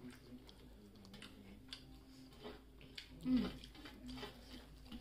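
A person chewing a bite of fish fry with a hard fried coating, with faint small clicks and mouth noises. A brief voiced murmur comes about three seconds in.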